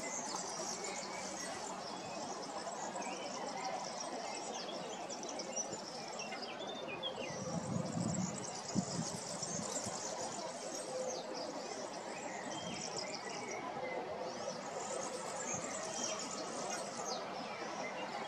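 Outdoor ambience: small songbirds chirping now and then over a steady high chirring of insects, with a brief low rumble about halfway through.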